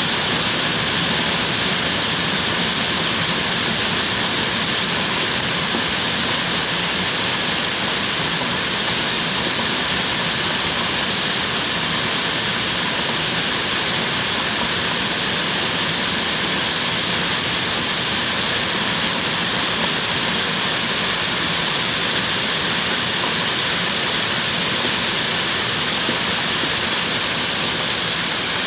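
Rain falling steadily, a dense even hiss that doesn't let up.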